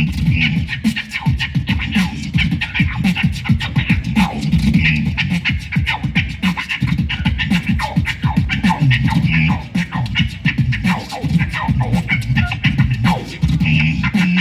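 Human beatbox performance through a PA: a fast, dense rhythm of mouth-made drum clicks over a heavy bass line, with short sliding sounds like turntable scratches.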